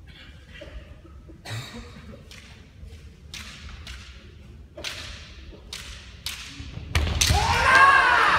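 A string of sharp cracks echoing in a large hall, then, about seven seconds in and loudest of all, kendo fighters' drawn-out kiai shouts as they face off.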